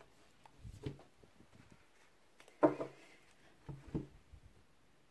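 Quiet handling of a paperback book and a deck of cards on a cloth-covered table: faint knocks and rustles, with two short, louder sounds about two and a half and three and a half seconds in.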